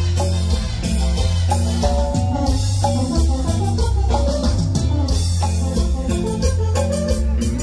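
A live tropical band playing dance music through a PA: a pulsing electric bass line, a guitar melody and a drum kit keeping a steady beat.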